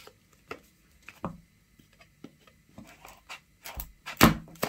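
A knife blade cutting through the paper seal stickers on a cardboard smartphone box, with light scratches and taps as the box is handled. Two louder knocks come near the end.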